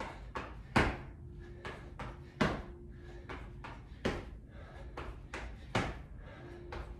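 Sneakered feet landing from small jumps on a hard wood-look floor: a heavy thud about every second and a half to two seconds, the drop into a squat, with lighter hop landings between.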